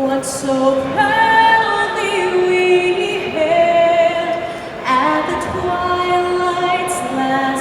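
A woman singing solo, holding long notes with a gentle vibrato.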